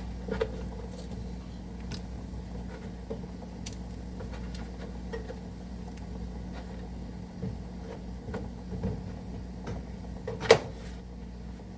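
A steady low hum, with scattered light clicks and taps and one sharper knock about ten and a half seconds in.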